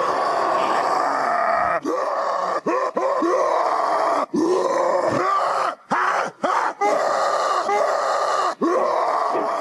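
Spear the Neanderthal's wordless vocal effects from Primal: a string of strained, rough grunts and groans, most falling in pitch, joined by abrupt cuts between clips.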